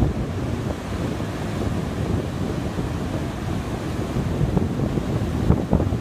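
Heavy surf breaking and washing up the beach in the rough sea left by a typhoon, with strong wind buffeting the microphone into a low, gusty rumble.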